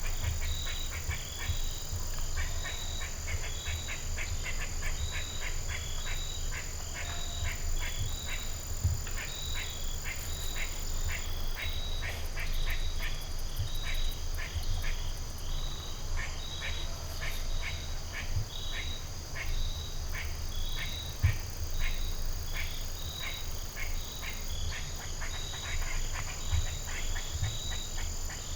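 Frogs calling in a steady chorus: many short notes repeated several times a second, over a low rumble. One brief louder thump comes about three-quarters of the way through.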